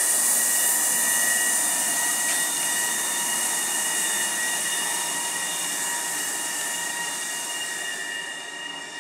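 GTS Rail E494 (Bombardier TRAXX) electric locomotive running light past as it departs: a steady high-pitched whine of several even tones over a hissing rail-and-wheel noise, loudest at first and fading as the locomotive moves away.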